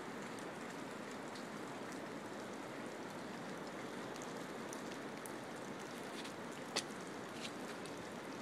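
Steady hiss of winter-storm precipitation falling, like rain, with scattered faint ticks and one sharp click near the end.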